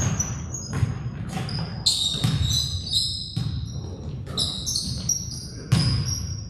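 A basketball bouncing on a gym floor during play, in irregular thuds, with sneakers squeaking sharply on the court several times.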